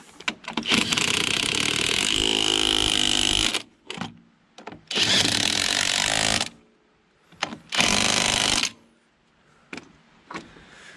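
Impact wrench running in three bursts, the first one long and the next two shorter, as it runs down and tightens the engine's mount bolts. A few short clicks fall between the bursts.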